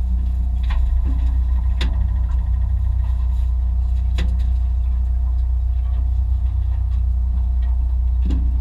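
Fishing boat's engine running steadily with a deep rumble, with a few sharp knocks about a second, two seconds and four seconds in.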